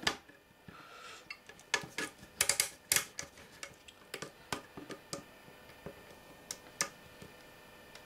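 Small irregular metallic clicks and scrapes of a hand tool working at the very tight slotted crown nut of a control knob on a metal avionics control panel. Several come close together in the first few seconds, then they thin out to occasional single clicks.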